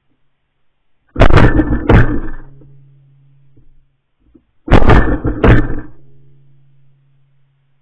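Shotgun fired four times as doves fly over, in two quick pairs of shots under a second apart, with the pairs about three and a half seconds apart. Each shot is sharp, loud and clipped, with a short decaying tail.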